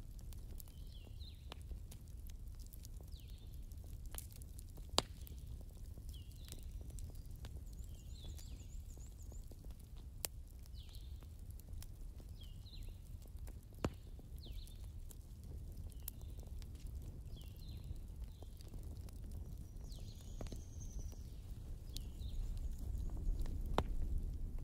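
A small bird chirping: short falling chirps repeated about every second or two, over a low steady rumble. Three sharp clicks stand out, the loudest about five seconds in.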